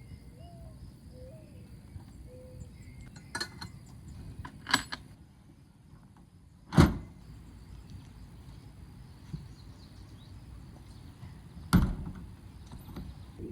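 A few sharp knocks and thumps, the loudest about seven seconds in and another near twelve seconds, over a low steady rumble.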